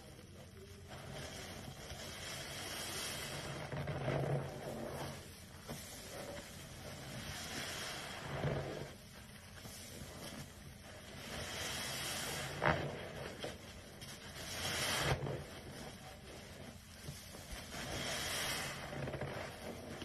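Large soap-soaked tractor sponge squeezed and kneaded in thick suds by a gloved hand, the wet foam squelching and crackling in slow swells every couple of seconds, with one sharper squish a little past halfway.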